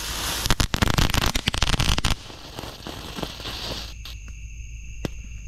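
Red Rhino 'Kids Garage' minivan novelty firework burning on the ground: a hissing spray of sparks that breaks into loud, rapid crackling for about two seconds, then dies away about four seconds in. A single sharp pop comes near the end.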